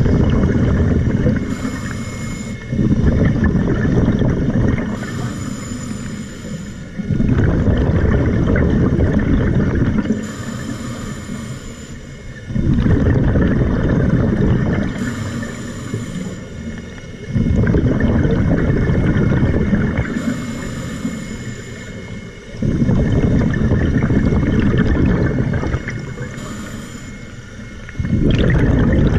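Scuba diver breathing through a regulator underwater: a short, quieter hissing inhale, then a loud bubbling exhale lasting about two and a half seconds, the cycle repeating about every five seconds.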